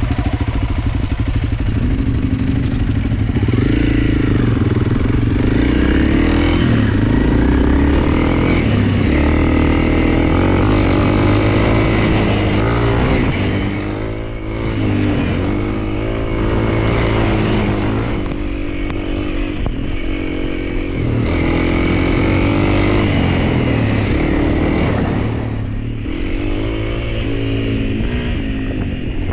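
Honda CRF300L's single-cylinder four-stroke engine running while riding, its pitch rising and falling with the throttle. It eases off briefly about halfway and again near the end.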